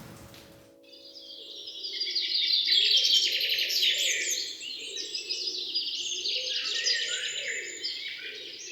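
Many small birds chirping and twittering together in a dense, overlapping chorus that starts about a second in.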